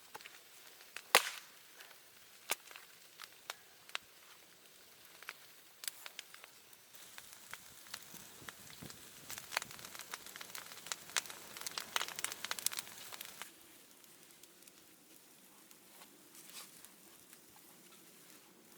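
Dry wood making sharp snaps and knocks, the loudest about a second in, then a dense run of crackling in the middle that stops suddenly.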